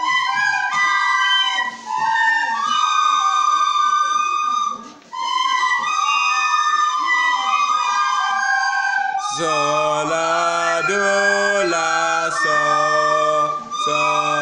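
A group of children playing plastic recorders together: a slow hymn tune in high held notes, with a short break about five seconds in. About nine seconds in, a lower voice starts singing the tune along with the recorders.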